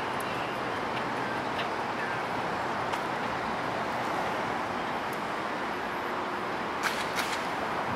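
Steady hiss of city traffic noise, with two short clicks near the end.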